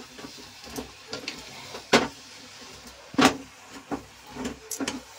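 Wooden spatula scraping and knocking against a non-stick kadhai as chunks of eggplant are stirred into the fried masala: irregular knocks, the loudest about two and three seconds in, with a quick cluster near the end.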